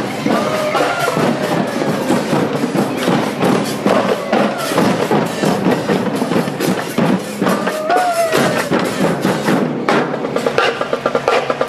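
Parade marching-band drums playing a dense, driving beat.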